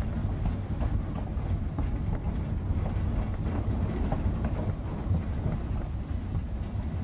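East Broad Top narrow-gauge train under way behind steam locomotive No. 15, heard from just behind the tender: a steady low rumble of wheels on track with scattered clicks and clanks.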